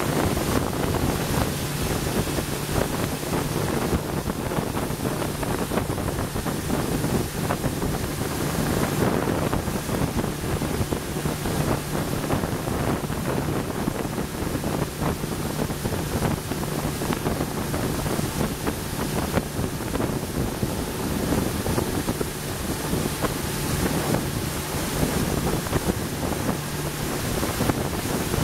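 Open motorboat running at speed: a steady engine drone under wind buffeting the microphone and water rushing past the hull.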